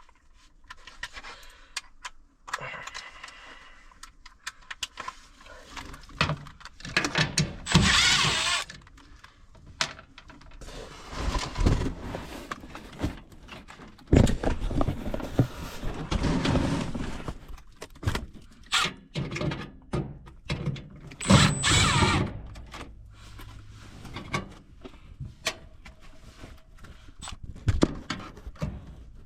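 A cordless drill with an extension bit backing screws out of a gas furnace's inducer motor in several short bursts, among clinks and knocks of tools and sheet metal being handled.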